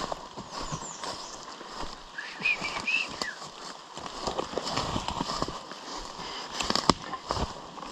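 Footsteps through wet forest undergrowth, with brush swishing and hiking poles knocking, and one sharp knock near the end. A bird gives a short call about two seconds in.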